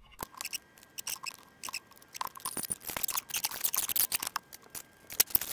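Irregular clicks, taps and light rattles of small tools and a workpiece being handled on a workbench, busiest about halfway through.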